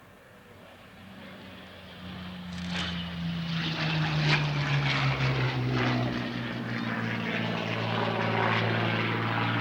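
Piston-engined propeller aircraft, several engines together, growing louder from about a second in to a steady drone. Their pitch falls slightly over the first few seconds, then holds.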